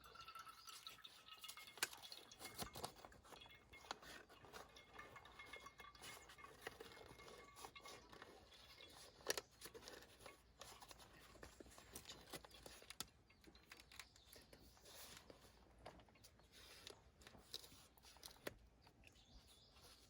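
Faint small clicks and rustles of objects being handled, scattered irregularly, with one sharper click about nine seconds in.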